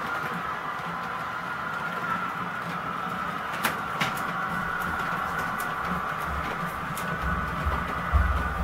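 Model freight trains running on a model railway layout: a steady motor whine with sharp clicks of wheels over rail joints, and a low rumble swelling near the end.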